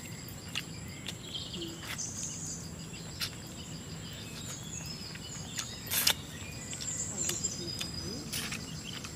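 Wet lip smacks and chewing clicks from eating fish curry by hand, a handful of sharp ones spread through, the loudest about six seconds in. Behind them a steady high insect drone and a few short bird chirps.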